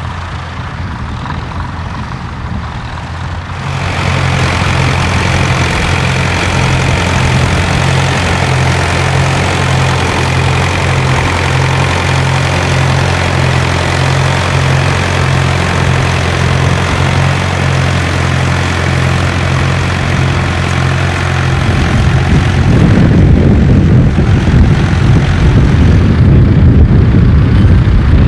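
Tractor engine running steadily with a throbbing beat, getting louder a few seconds in, then becoming rougher and louder about 22 seconds in.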